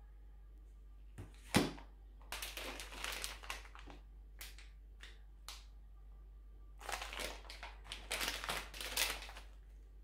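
Grocery packages being handled and set down on a tabletop: a single sharp knock about one and a half seconds in, then two stretches of plastic food bags crinkling.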